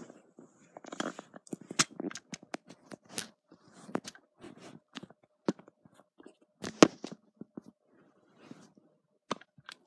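Handling noise: an irregular string of small sharp clicks and knocks with short bursts of fabric rustling, loudest twice, about two seconds in and near the middle, as the camera and plastic pieces are moved against cloth.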